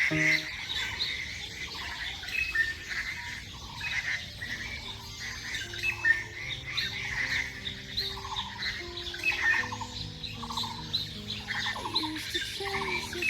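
Several birds singing and calling together in woodland: many short chirps and repeated trilled phrases overlap, with soft sustained music underneath.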